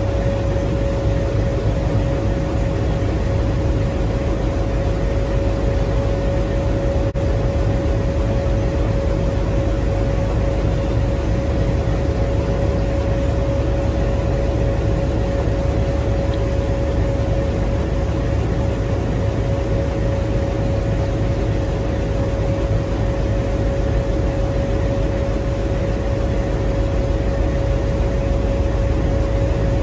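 WDM3D ALCO diesel locomotive idling close by: a steady low rumble with a constant whine over it.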